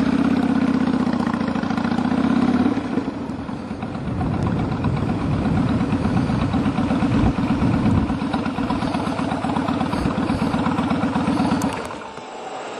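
Kawasaki Vulcan Mean Streak 1600 V-twin motorcycle engine running under way, heard from the rider's seat. The engine is loudest over the first few seconds, then runs steadily before dropping off near the end as the bike slows to a stop.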